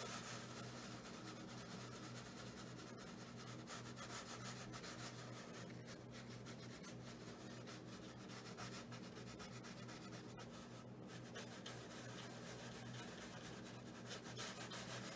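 Watercolour paintbrush stroking quickly across paper: a faint, continuous scratchy rubbing of many short strokes, over a low steady hum.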